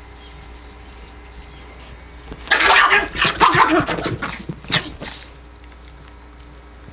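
A puppy growling and yelping as it play-fights with a cat, in a burst of about three seconds that starts some two and a half seconds in.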